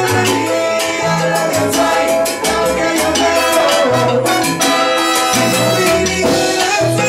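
Live band playing salsa-style tropical music, with brass horns holding notes over a bass line and steady percussion.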